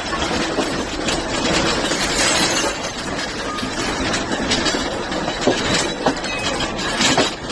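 Continuous loud rumbling, rattling noise with a few sharp knocks in the second half.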